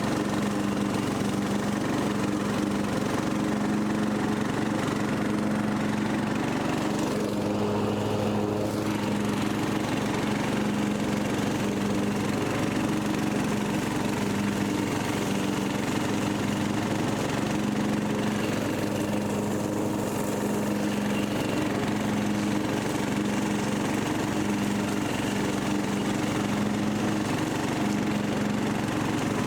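Rebuilt Briggs and Stratton 17.5 HP lawn mower engine running steadily on a test run after carburetor changes.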